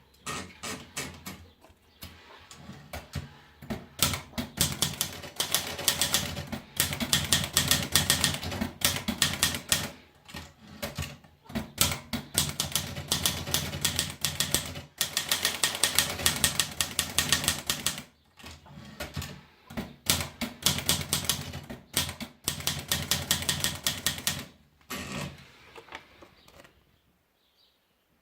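Olivetti Dora manual portable typewriter being typed on: rapid runs of sharp key strikes with short pauses between runs, stopping a couple of seconds before the end.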